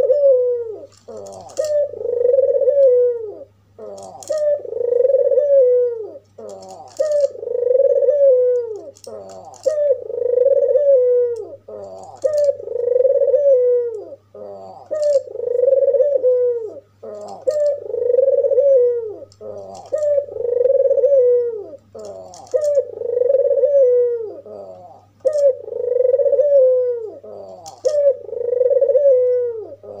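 White albino ringneck dove (puter) giving its bow-coo over and over, a rolling coo about a second and a half long repeated roughly every two seconds.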